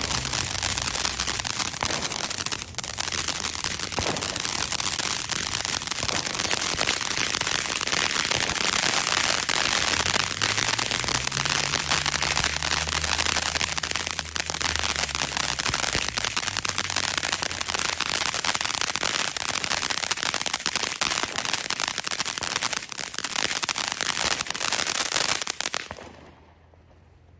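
Ground fountain firework spraying sparks, with dense, continuous crackling and popping that stops suddenly near the end.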